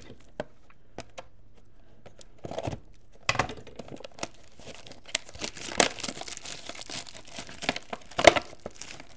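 Wrapper on trading-card packaging crinkling and tearing as it is opened: a few scattered clicks at first, then dense crinkling with sharp snaps from about three seconds in.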